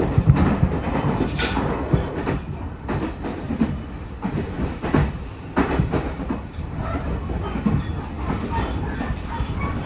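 Train running, a steady low rumble with an irregular clatter of the wheels on the rails.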